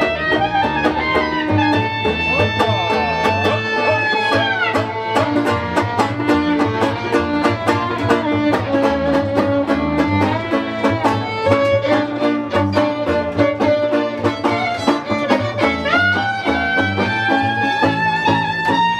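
Klezmer band playing live: fiddle and clarinet carry the melody over double bass and banjo, which keep a steady plucked beat. Near the end the melody makes a long upward slide.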